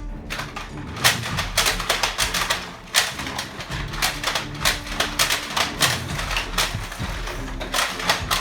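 Rapid, irregular clicking and clacking of plastic toy parts, over quiet background music.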